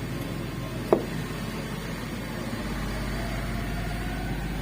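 A single sharp knock about a second in, over a steady low background hum, with a faint rising whine coming in near the end.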